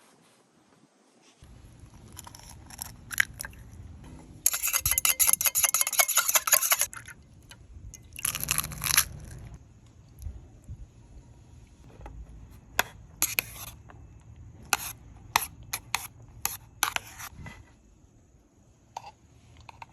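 Chopsticks clattering against a bowl as raw egg is beaten and stirred into rice. There is a fast run of clicks for about two seconds, then scattered taps and clinks.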